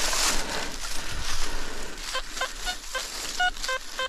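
Digging in soil, a rough scraping and crunching, followed about halfway through by a metal detector giving a run of about seven short beeps, some lower-pitched than others, as it is passed over the freshly dug spot to check the target.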